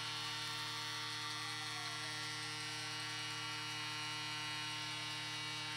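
Steady electrical hum with a high buzz over it, unchanging throughout, and no game or crowd sound heard through it.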